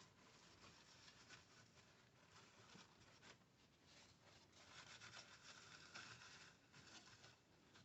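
Faint rubbing of a paper towel wiping a server part clean, stronger for a stretch about five to six and a half seconds in.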